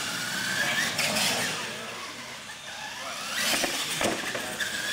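Radio-controlled monster truck's electric motor and gears whining, the pitch rising as it accelerates: about a second in, again after three seconds and near the end.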